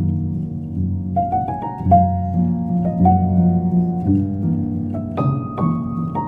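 Instrumental background music: a melody of separate plucked or struck notes over sustained lower notes.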